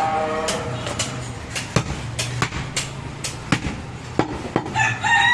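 Butcher's cleaver chopping through goat meat and bone on a wooden stump block: repeated sharp chops at an uneven pace, roughly two a second. A rooster's crow trails off at the start and another crow begins near the end.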